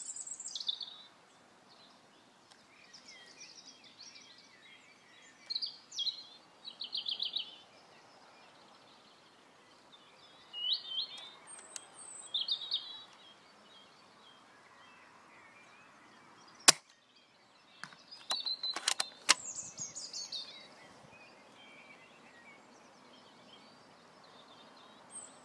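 Songbirds chirping and calling on and off over a quiet outdoor background. About two-thirds of the way through comes one sharp, loud click, then a quick run of several sharp clicks two seconds later.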